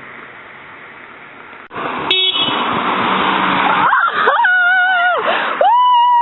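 A car passing close by, with a brief horn toot as it goes by, followed by high-pitched squealing cheers from people at the roadside; the last squeal is held and falls away at the end.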